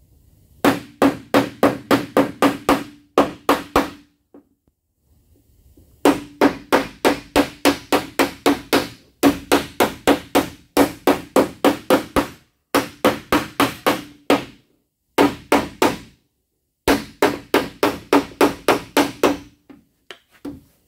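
Body hammer striking sheet metal held against a dolly, in quick runs of ringing blows at about four a second with short pauses between runs. The hammer-and-dolly work is bringing a creased panel edge back out to shape.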